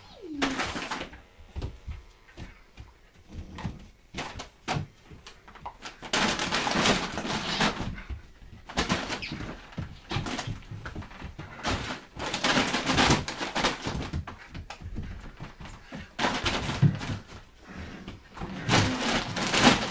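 Giant schnauzer puppy playing rough with a toy: several bursts of scuffling and play-growling, each lasting a second or two, with quieter gaps between them.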